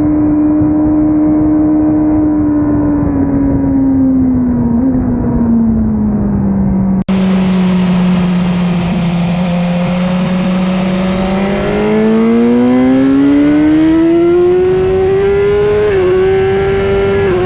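BMW S1000RR's inline-four engine at track speed with wind rush. The engine note sinks as the bike slows, breaks off abruptly about seven seconds in, then climbs steadily under hard acceleration, with a brief dip near the end at a gear change.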